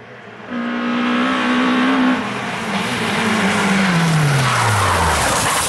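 Peugeot 206 rally car's engine held at high revs, then the revs fall away steadily over about three seconds as it comes off the throttle. Rising tyre skid and scrabble on the loose road surface as the car slides toward the roadside.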